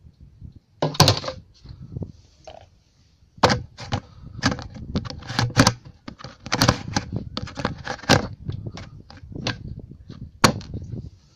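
Irregular plastic knocks, clicks and rattles as the blue lid is handled and pressed onto the white plastic tank of a Maruyama rechargeable sprayer. A few loud knocks come about a second in, then a busy run of them from about three and a half seconds on.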